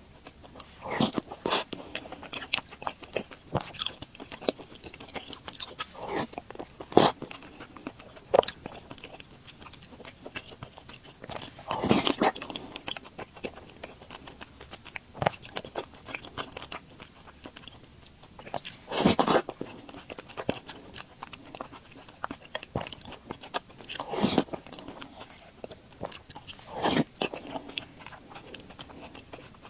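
Close-miked eating: chewing soft glutinous rice balls in sweet soup, with many small wet mouth clicks and a few louder, longer bursts of mouth noise.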